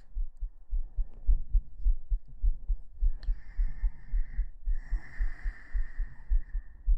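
Human heartbeat picked up by a microphone pressed against the chest: steady, regular low thumps in a quick rhythm. Two longer soft breathy hisses come in over it in the second half.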